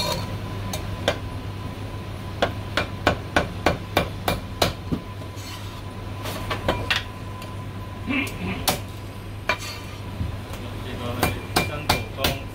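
Heavy cleaver chopping marinated goose, meat and bone, on a chopping block. Sharp, loud chops come in quick runs of about three a second, with sparser single chops between the runs.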